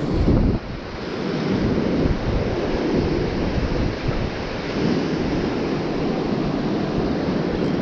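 Surf breaking and washing up the beach, with wind buffeting the microphone; a loud low buffet in the first half-second, then a steady rush.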